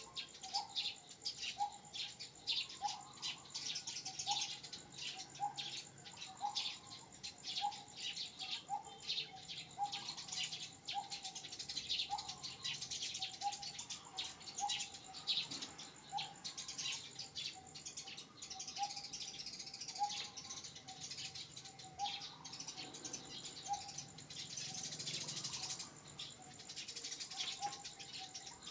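Outdoor birdsong: one bird repeats a short rising note about one and a half times a second, over a dense chatter of high chirps and a thin steady high whine.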